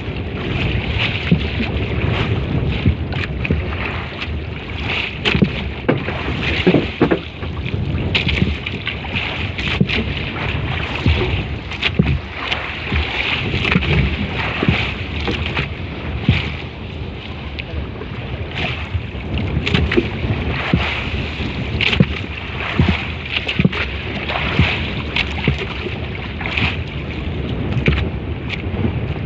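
Small boat underway on the open sea: a steady rush of wind and water with frequent short knocks and splashes against the hull.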